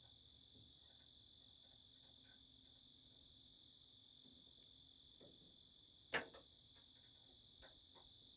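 Faint, steady high chirring of crickets, with a single sharp click about six seconds in and a few faint small ticks.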